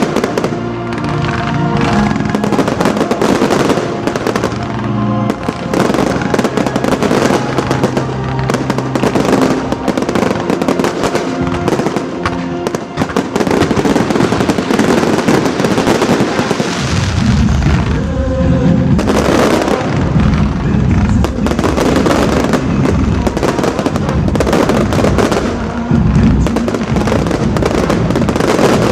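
An aerial fireworks display: rapid, dense popping and crackling over loud music. From about 17 seconds in, deep booms from larger shells join in.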